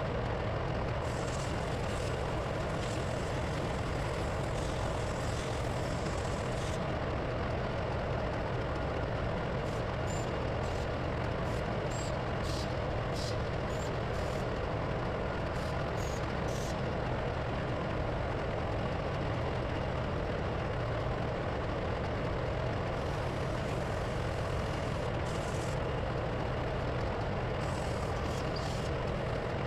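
Steady, loud drone of running diesel machinery in a ship's engine room, with a few short light clicks in the middle and near the end.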